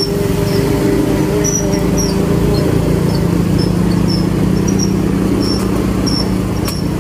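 Motor scooter engine running steadily as the scooter rides along, with short high chirps repeating about twice a second over it.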